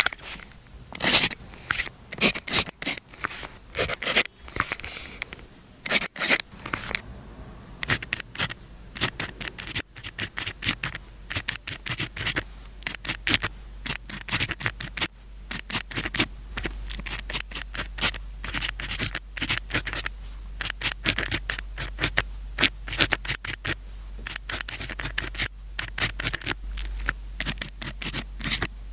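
Pen writing on paper: a quick, continuous run of short scratching strokes, close up.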